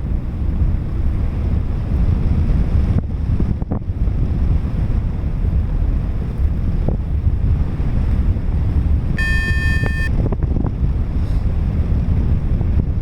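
Strong wind buffeting the microphone of a paraglider pilot in flight, a steady low rumbling rush. About nine seconds in, a single steady electronic beep sounds for about a second.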